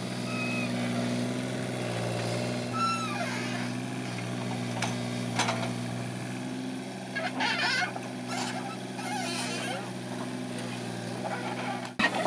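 Mini excavator's diesel engine running steadily while it digs, with a short falling squeal about three seconds in and the bucket knocking and scraping through soil and stones several times in the second half.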